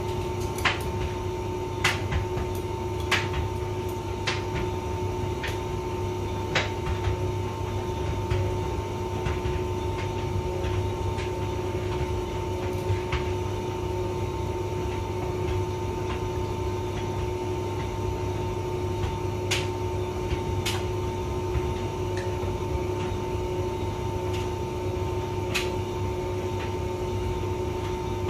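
Hotpoint vented tumble dryer running: a steady low hum with a constant whine above it, and sharp clicks and knocks at irregular moments as the drum turns.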